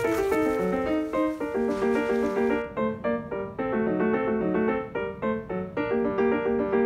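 Background piano music: a lively run of quick, short notes. A faint hiss underneath cuts off abruptly about two and a half seconds in.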